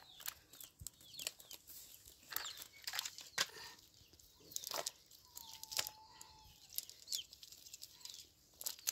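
Nylon cast net rustling and scraping on concrete as hands pick small fish out of it, with scattered sharp clicks and slaps.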